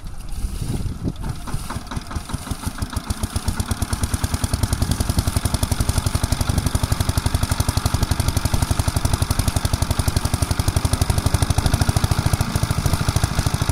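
Small engine of a portable water pump starting up. It fires unevenly at first, then settles within a few seconds into a steady, rapid chugging.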